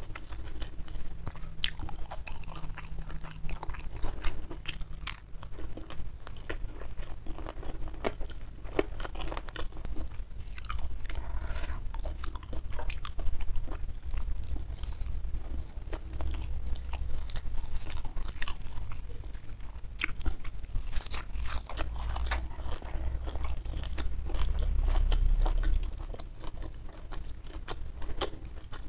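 A person chewing and crunching food right at a clip-on microphone, with many short sharp crunches and wet mouth clicks.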